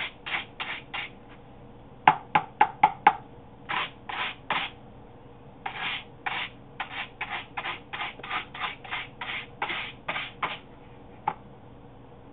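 A small scrubbing brush rubbed in short back-and-forth strokes along the pleats of a Hoover WindTunnel vacuum cleaner filter, loosening the dirt. The strokes come in runs of two to three a second with brief pauses, and there is a single click near the end.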